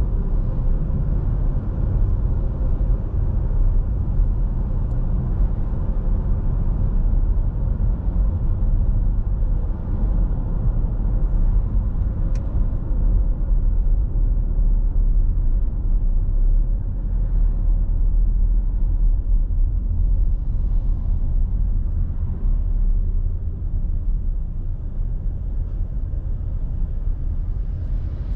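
Steady low road and engine rumble of a car driving, heard from inside the cabin. It eases a little near the end.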